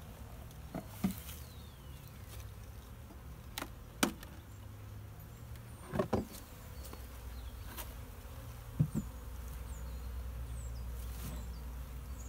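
Honeybees buzzing in a steady hum around an open hive, with several sharp knocks of wooden hive boxes being lifted and set down, a double knock about six seconds in and another near nine seconds.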